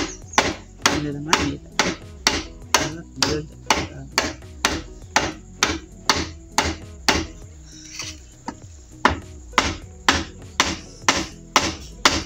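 A small axe chopping into a thick green bamboo stem, cutting a notch through its wall. The sharp strikes come about twice a second, with a brief pause a little past the middle.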